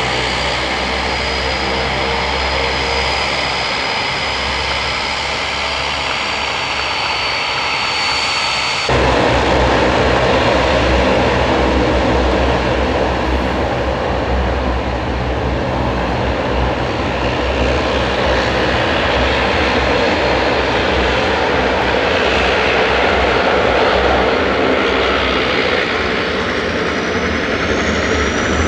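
Airliner engines running at close range: a steady rumble with a high turbine whine. About nine seconds in the sound changes abruptly and gets louder, and near the end a high whine rises in pitch.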